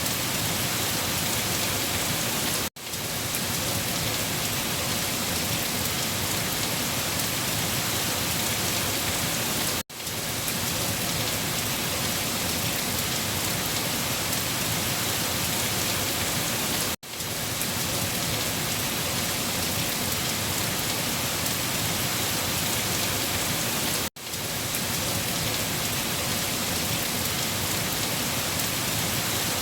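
Heavy rain falling on leaves: a dense, steady hiss of drops. Four times, about seven seconds apart, it cuts out for a split second and quickly swells back in.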